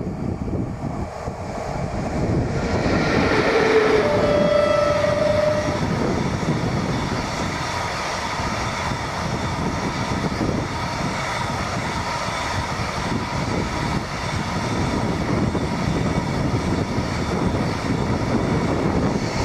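An ET22 electric freight locomotive passing close, sounding a two-note horn about three to four seconds in: a short lower note, then a longer higher one. Then the steady rolling noise and clatter of a train of empty container flat wagons running by.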